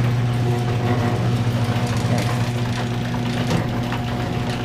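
Garage door opener motor running steadily with a low hum and a fast, fine rattle, driving the door open. The door is opening in response to a 'close garage door' command given while it was already shut.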